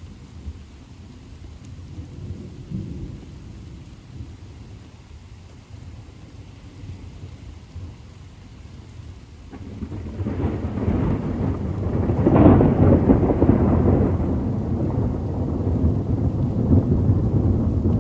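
Thunder rumbling over steady rain: a low rumble that swells about halfway through, is loudest a couple of seconds later, then rolls on.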